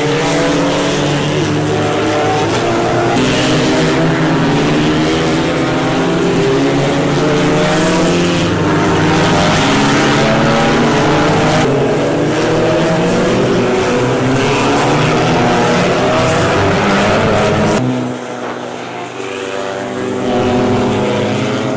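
Volkswagen Golf GTI TCR race cars' turbocharged 2.0-litre four-cylinder engines driving past on a soaked track, pitch climbing and falling again and again through gear changes, over a steady hiss of water spray. About 18 seconds in the sound drops away to a quieter car, then swells again.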